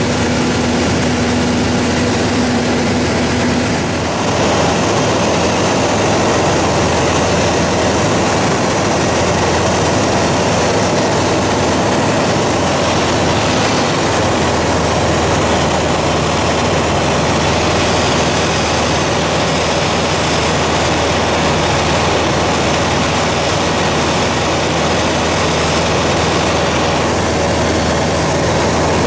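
Light aircraft's engine and propeller running steadily, heard inside the cockpit in cruise flight. The tone shifts slightly about four seconds in.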